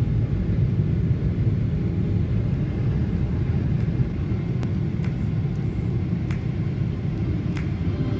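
Jet airliner cabin noise heard from a window seat: a steady low rumble of engines and airflow.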